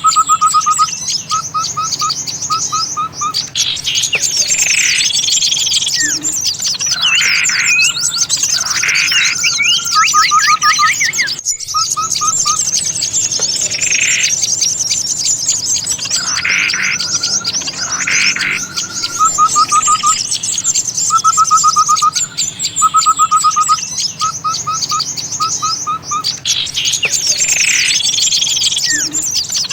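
Busy chorus of small songbirds from a bird-lure recording: many birds chirping and whistling at once over a constant high trill, with repeated quick runs of short notes and falling whistles. The pattern recurs as if looped, with a brief break about a third of the way through.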